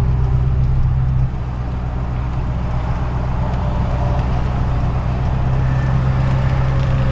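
Truck engine and road noise heard from inside the cab while driving, a steady low hum that drops in level about a second in and then slowly builds back up.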